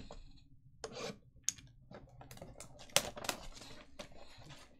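Clear plastic shrink wrap being cut and peeled off a cardboard trading-card box, crinkling with a run of irregular crackles and sharp clicks, the sharpest about three seconds in.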